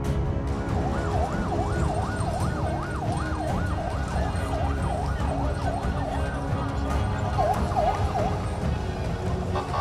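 Emergency vehicle siren in a fast yelp, its pitch rising and falling about two and a half times a second. It fades out a little past the middle and comes back briefly near the end, over a steady low rumble.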